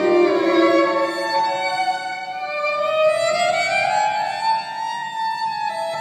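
Violin played live: several sustained bowed notes layered over one another, with a slow upward slide about three seconds in, heard in a large stone church.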